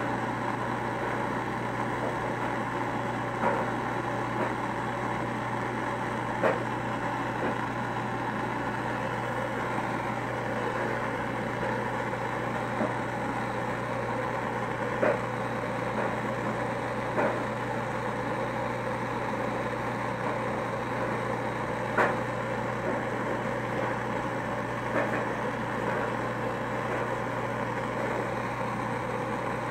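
Handheld gas torch burning steadily with a rushing hiss and a low hum under it, while glass rods are heated in its flame; a few light clicks come now and then.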